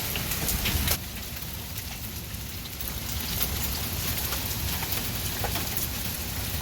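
Heavy rain falling steadily, an even hiss of drops with scattered sharper drop ticks; it drops a little in loudness about a second in.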